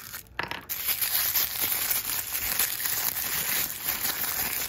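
Tissue paper crinkling and rustling continuously as hands pull it apart to unwrap a pair of small doll shoes. It starts about half a second in.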